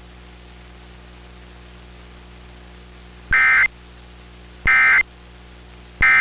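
Steady receiver hiss and hum, then the Emergency Alert System end-of-message data bursts: three short, identical buzzy digital squawks about 1.3 seconds apart, starting about three seconds in. They mark the end of the alert.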